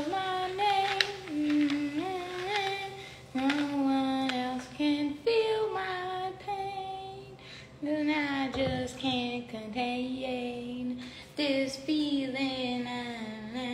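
A woman singing unaccompanied, holding long notes that slide up and down between pitches.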